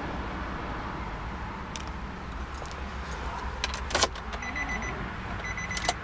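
Keys jangling and a key clicking into a 2004 Nissan Pathfinder's ignition about four seconds in, followed by the dashboard warning chime beeping rapidly in two short runs.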